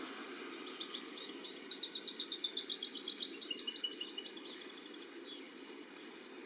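A small songbird twittering: a rapid run of high, repeated notes lasting about five seconds, ending in a short falling note, over a steady low rushing background.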